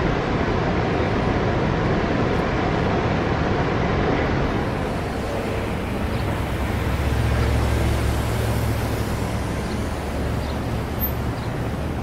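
Steady roar of a large waterfall, then, after a cut about five seconds in, outdoor traffic noise with a low engine rumble from about seven to ten seconds in.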